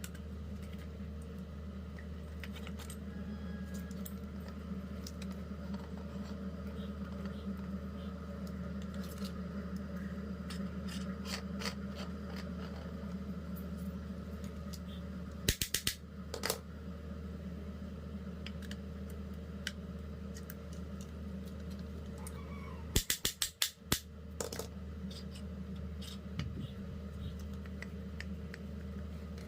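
Small metal parts and tools clicking and clinking as they are handled, over a steady low hum. Two short runs of sharp clicks come about halfway through and again about three-quarters of the way in.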